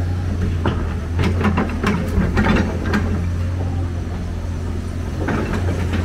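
Hyundai 290 excavator's diesel engine running steadily under load as it loads a dump truck, with a scatter of knocks and clatters over the first half and again near the end as rubble drops from the bucket into the steel truck bed.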